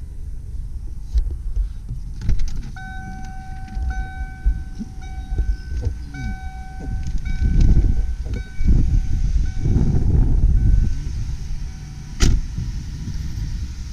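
A 1995 Ford Taurus's electronic warning chime sounding a steady tone over and over, about once a second for roughly eight seconds, over a low rumble. A single sharp knock comes near the end.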